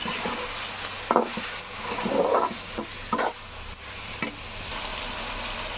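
Chicken pieces sizzling in hot oil in a kadai while being stirred. The spoon scrapes and knocks against the pan a few times, about once a second, over a steady hiss of frying.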